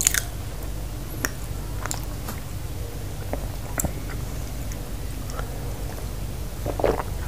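Close-miked mouth sounds of a man chewing, with a few sharp wet clicks of the lips and tongue, over a steady low hum. Near the end he takes a drink from a glass.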